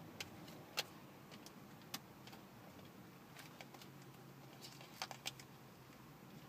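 Faint handling noise from a small box turned over in the fingers: a few light, sharp clicks and taps, one about a second in, one near two seconds, and two close together around five seconds.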